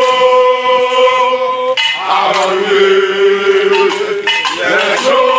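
Men chanting in long held notes: three drawn-out sung phrases, the middle one lower in pitch.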